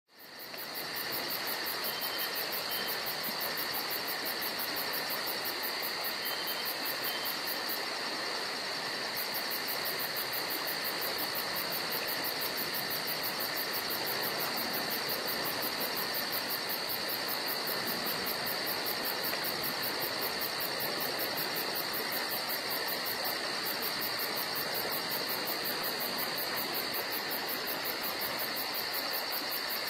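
Steady, unbroken chorus of night insects, crickets, at a high pitch.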